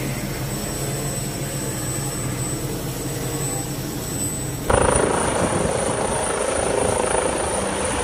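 Turbine helicopters running, engine and rotor steady with a low hum. About halfway through it cuts abruptly to a second, louder helicopter hovering, with a high steady turbine whine.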